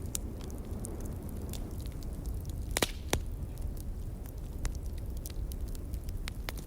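Wood fire crackling in a fireplace: scattered small pops with two louder snaps near the middle, over a steady low rumble of wind.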